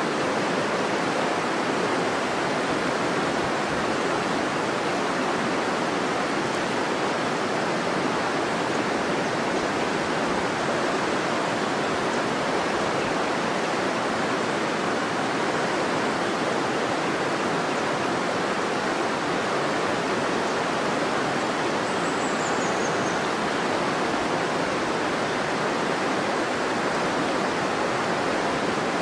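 River water rushing steadily, a constant even noise that never lets up.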